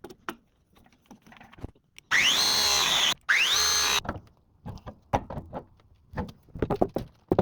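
Cordless drill run twice in short bursts of about a second each, each one spinning up with a rising whine, followed by scattered clicks and knocks of parts being handled.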